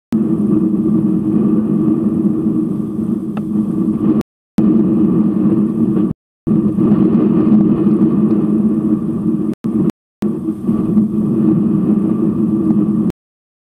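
Steady low rumble with a constant hum in it, cut off abruptly to dead silence several times for a fraction of a second each.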